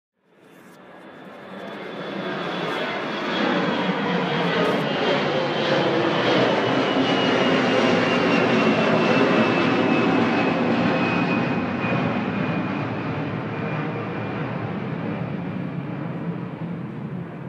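Jet engines of a Boeing 747 freighter passing close by on the runway: a dense rushing engine noise with a high whine that slowly falls in pitch. It rises out of silence over the first couple of seconds, is loudest around the middle, then slowly eases off.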